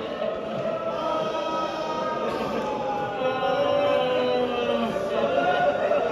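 Many mourners' voices wailing together in long, wavering drawn-out cries, a collective lament of grief during a masaib recitation.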